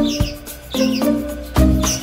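Background music: evenly spaced notes held over a low bass, with short high chirping sounds among them.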